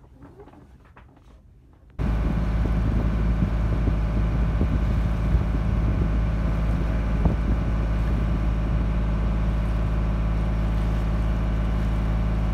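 A boat's engine running at a steady, unchanging drone, cutting in suddenly about two seconds in after a stretch of faint sound.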